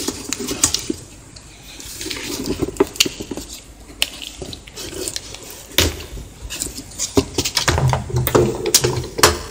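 Plastic and cardboard packaging rustling and crinkling as a laptop screen panel is unwrapped by hand, with many irregular sharp clicks and a few light knocks.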